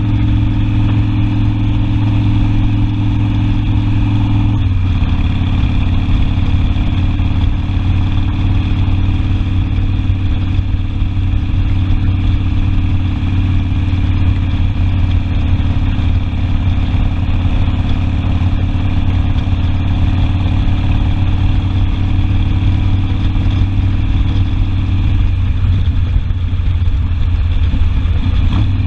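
Harley-Davidson Sportster V-twin engine running steadily, the note shifting noticeably about five seconds in and again near the end.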